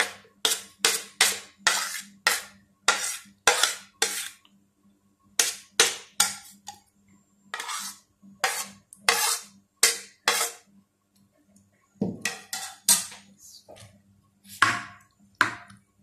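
Quick scraping strokes on a ceramic plate, coming in bursts of several strokes a second with short pauses between: chopped vegetables being scraped off the plate into a bowl.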